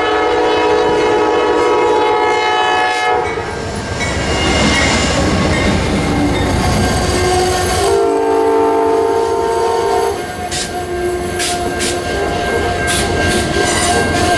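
Amtrak passenger train passing a grade crossing. The locomotive's multi-chime air horn sounds a long chord, then a second, lower-pitched blast about eight seconds in, over the rumble of the train. Wheels click over the crossing and rail joints as the passenger cars go by near the end.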